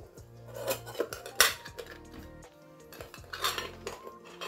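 Titanium camp pot and lid clinking and clattering as the lid is set on and the packed pot is handled, a few sharp metal knocks with the loudest about a second and a half in and another cluster near the end.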